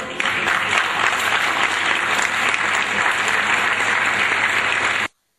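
Audience applauding after the music stops, cut off abruptly near the end.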